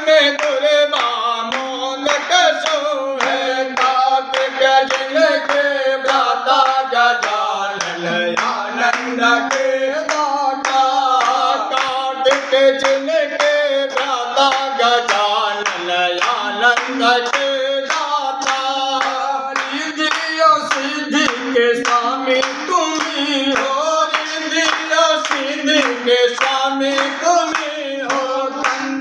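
Voices singing a Hindu devotional aarti hymn, accompanied by steady rhythmic hand clapping.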